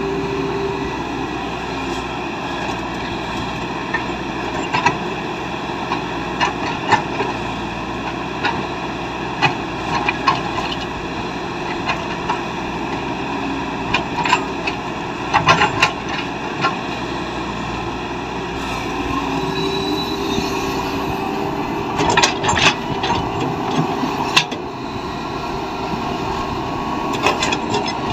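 Heavy diesel earthmoving machinery running steadily, with scattered sharp knocks in clusters, loudest about halfway through and again a few seconds before the end.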